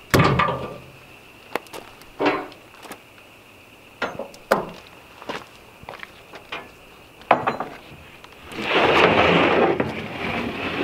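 Sheets of plywood being handled on a trailer bed: a loud knock right at the start and a series of lighter wooden knocks and thumps, then a sheet sliding across the stack with a long scrape about two thirds of the way in.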